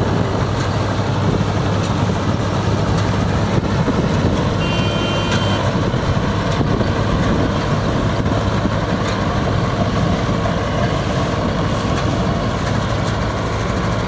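Yanmar Arjun YH 700 full-feed combine harvester running steadily, a loud, even machine drone with a low hum.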